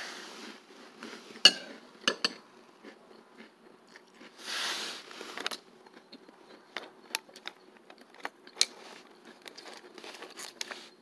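A metal spoon clinks against a ceramic bowl, with a few sharp clicks in the first two or three seconds, followed by crunchy chewing with many small crackles as a mouthful of snack is eaten.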